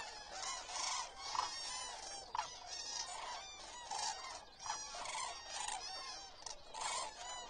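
A large flock of common cranes calling: many overlapping calls, a few every second, from birds near and far.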